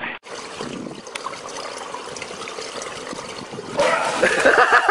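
Swimming-pool water splashing and sloshing. Near the end a person breaks into quick, repeated laughter.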